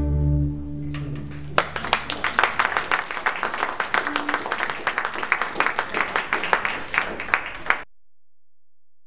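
A student string orchestra's last chord of violins, cellos and double basses dies away over the first second and a half, then the audience claps and applauds until the sound cuts off suddenly near the end.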